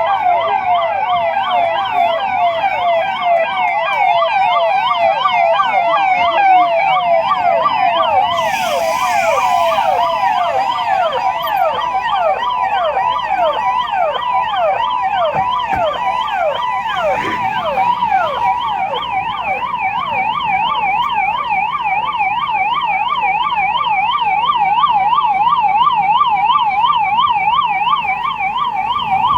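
Ambulance siren in a fast yelp, rising and falling about three to four times a second. For a stretch in the middle, a second siren with quick falling sweeps overlaps it, and there is a short hiss about a third of the way in.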